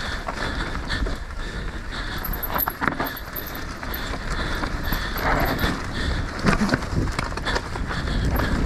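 Mountain bike rolling down a dry dirt trail: tyres crunching over leaves and loose dirt, with the bike knocking and rattling over bumps, and wind noise on the microphone.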